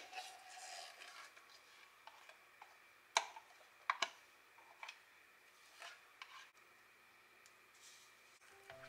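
Scattered sharp clinks and taps of utensils against a stainless steel mixing bowl, the loudest about three and four seconds in, as mashed banana and then oil from a measuring spoon go into the bowl and a silicone spatula works in it.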